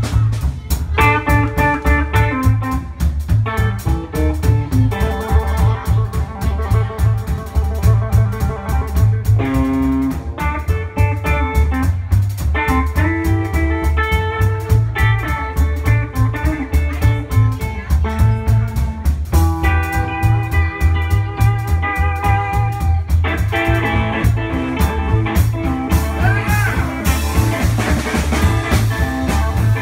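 Live electric blues band playing an instrumental passage: amplified harmonica, cupped against a microphone, plays long held notes over electric guitar, bass and drums keeping a steady beat.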